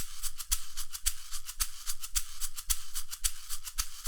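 Instrumental passage of an upbeat song: maracas shaking in a steady rhythm over a drum beat of about two strikes a second.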